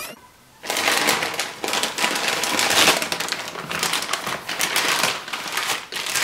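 A thin plastic bag crinkling and rustling as it is handled and filled with wet grout, with the spatula scraping and scooping the grout. The crackling starts under a second in and carries on densely with many small clicks.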